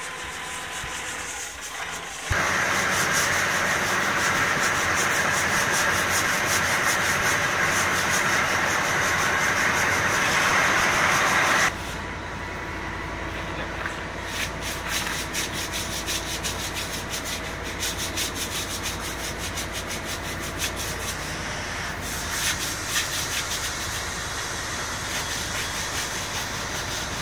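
Sanding on a yacht's hull, in two stretches: a loud steady rasp from about two seconds in, then, about twelve seconds in, a quieter uneven scraping of many short strokes.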